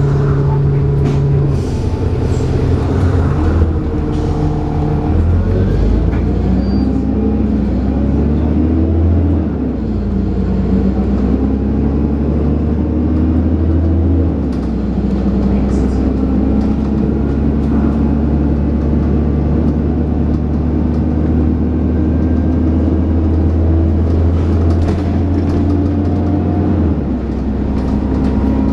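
Dennis Trident 2 double-decker bus engine heard from on board, pulling under load with the hoovering induction sound and thrash the bus is known for. The engine note climbs and then drops back twice in the first half, as with gear changes, then holds a steady drone.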